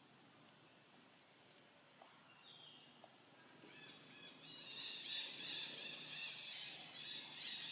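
Birds chirping: a short high whistle about two seconds in, then from about four seconds a louder, busier run of short repeated high chirps.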